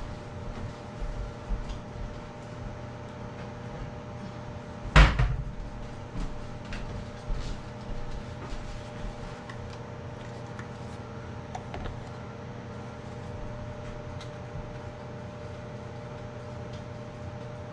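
A kitchen cupboard door shutting with one sharp, loud knock about five seconds in. Lighter clicks and knocks of handling follow over a steady low hum.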